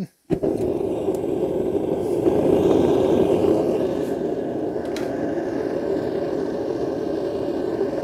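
Gas burner of a homemade foundry furnace running at about 5 PSI, a steady rushing noise that starts suddenly just after the beginning, as the burner is lit.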